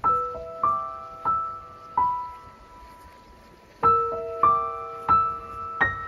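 Background music: a slow piano melody of single ringing notes, two phrases of four notes each with a short pause between them.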